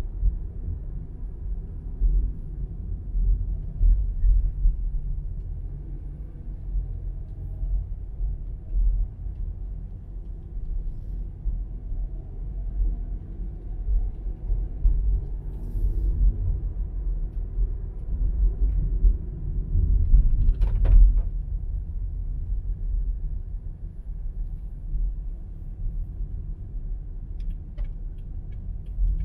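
A car driving at low speed: steady low rumble of engine and tyres on the road, with a brief rattle about twenty seconds in.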